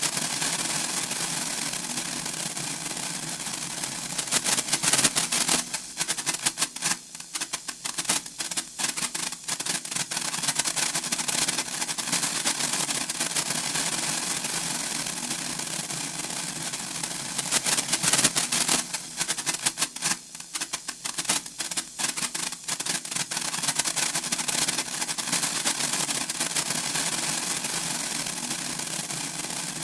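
Senko hanabi (Japanese incense-stick sparkler) crackling and fizzing as its glowing ball throws off sparks, a dense run of tiny rapid pops. Louder flurries of crackling come about five seconds in and again about eighteen seconds in, each followed by a few seconds of sparser pops.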